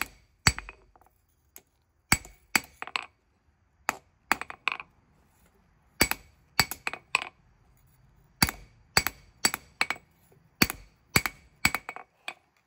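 Hand hammer striking hot leaf-spring steel on an anvil, in bursts of four to six quick blows with short pauses between them, each blow ringing. The blade is being drawn out and tapered from the tang toward the tip.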